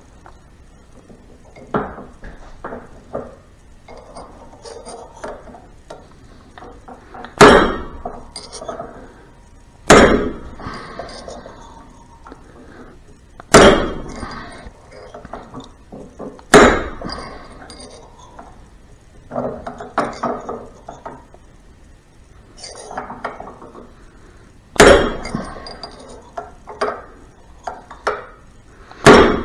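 Hammer striking a steel punch to knock an inner bearing out of a Harley-Davidson five-speed transmission drive gear held in a vise. About six sharp metal-on-metal blows a few seconds apart, with lighter clinks between them as the punch is moved around the bearing.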